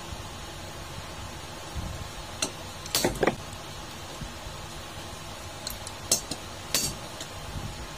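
Sharp metallic clinks of hand tools on a fan motor's shaft and nut: a quick cluster about three seconds in and a few more near the end, over a steady low hum.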